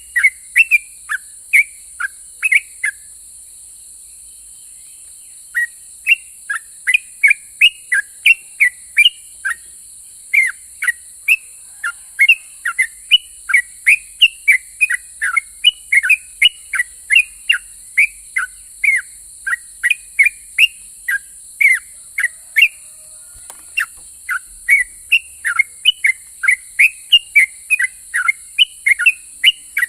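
Yellow-vented bulbul (trucukan) singing: a fast run of short chirping notes, about three or four a second, broken by a pause of a couple of seconds about three seconds in. A steady faint high hiss runs underneath.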